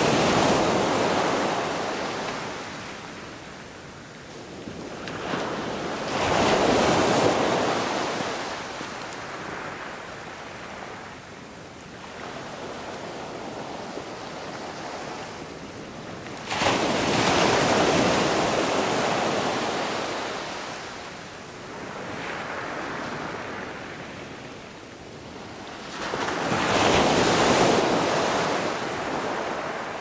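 Surf: waves breaking and washing back in slow surges, about one every ten seconds. The one about seventeen seconds in breaks most abruptly.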